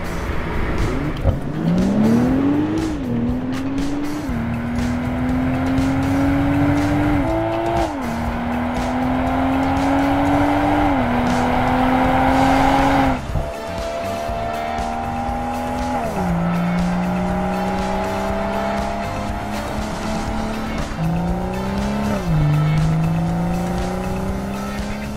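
BMW 2 Series Coupe engine and exhaust under acceleration. The pitch climbs, drops sharply at each gear change, and climbs again, several times over.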